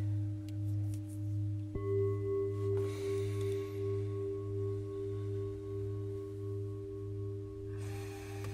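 Metal singing bowls ringing with slow, wavering pulses in their tones. One bowl is struck with a mallet about two seconds in and rings on, and a higher-pitched bowl joins near the end.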